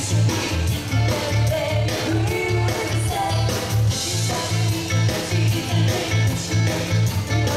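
Live band playing an upbeat rock-and-roll style song with a steady bass beat, about four pulses a second, and guitar, while a woman sings over it through the stage microphone.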